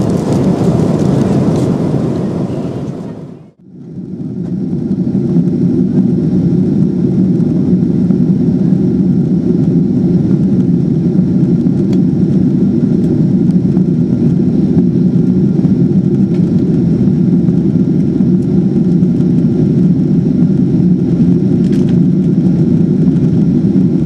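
Cabin noise of a Boeing 767-400ER airliner during descent: a loud, steady low drone of engines and airflow with faint steady whine tones above it. It fades out and comes back about three and a half seconds in.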